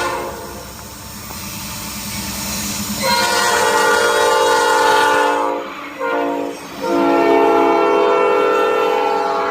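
Five-chime Nathan AirChime P5 horn on a Norfolk Southern locomotive, blowing the end of a grade-crossing signal. A brief note comes at the start, then the train's rumble builds, then a long blast, a short one and a final long blast, which is still sounding at the end.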